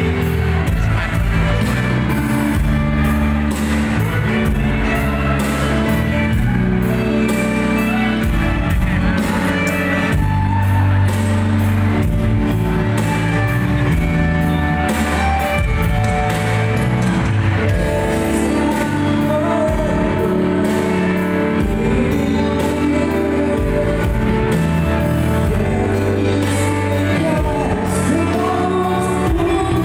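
Live band playing a song through a PA: bass guitar, electric guitar, electronic drum kit and keyboard at a steady beat, with a man singing over it.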